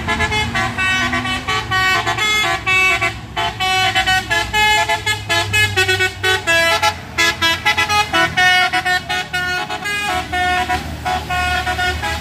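Multi-tone musical vehicle horn sounding a fast, continuous run of changing notes, with a steady low engine hum underneath.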